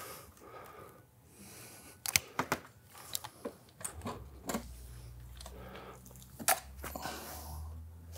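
Manual caulking gun clicking as its trigger is squeezed to lay a bead of sealant on a sheet-metal flashing lap: a handful of sharp, irregularly spaced clicks. A faint low hum comes in about halfway through.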